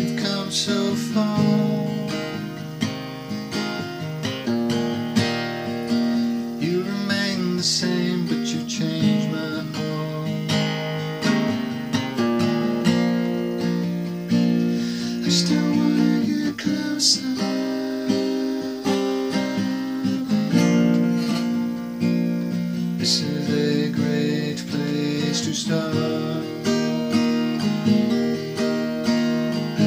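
Acoustic guitar tuned to drop D and played with a capo, strummed and picked as continuous song accompaniment.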